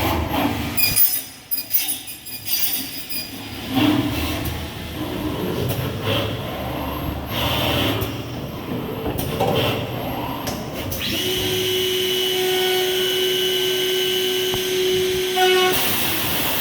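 CNC corner cleaning machine for PVC window frames working: irregular mechanical clattering and knocking, then a steady whine from about eleven seconds in, with a short loud burst near the end.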